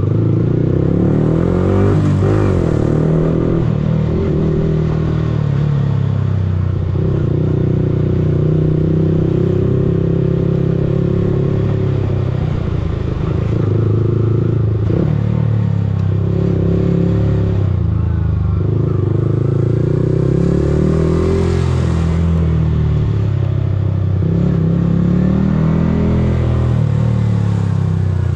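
Yamaha R15M's 155 cc single-cylinder engine heard on board at low road speed, its note rising and falling with the throttle.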